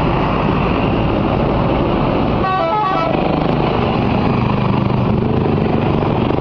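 Bus 'telolet' musical air horn sounding a quick run of stepped notes about two and a half seconds in, lasting about half a second, over loud steady engine and road noise.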